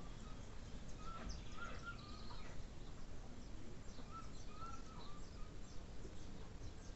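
Birds calling: short, wavering mid-pitched notes come in small groups, with faint higher chirps between them, over a steady low background hum.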